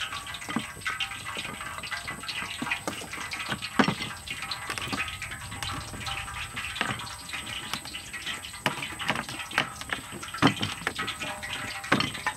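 Wooden rolling pin rolling dough on a floured metal tray: a rushing sound broken by irregular light knocks.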